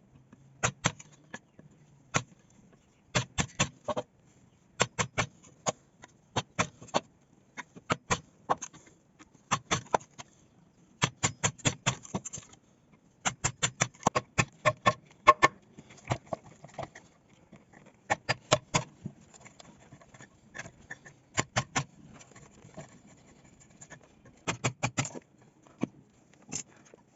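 Wood being struck with a mallet or hammer in hand joinery work: quick clusters of two to six sharp knocks, repeated every second or two.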